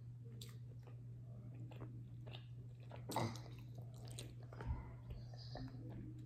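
Close-up mouth sounds of someone eating rice with their fingers: faint wet chewing and small smacks and clicks, one louder smack about three seconds in, over a steady low hum.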